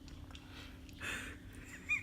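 A person's short, noisy breath about a second in, then a brief high-pitched squeaky vocal sound near the end, over a steady low hum.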